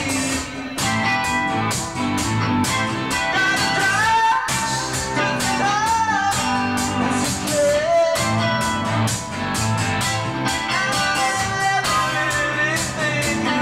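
A rock band playing live in a rehearsal room: guitars, bass and drums together over a steady drum beat, with a bending lead melody on top.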